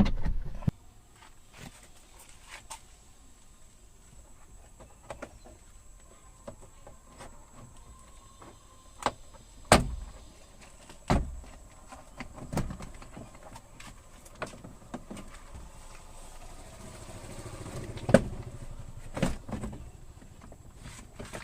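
Scattered sharp clicks and knocks of a car's door trim panel being worked off the door. The loudest knocks come about ten seconds in and again near eighteen seconds.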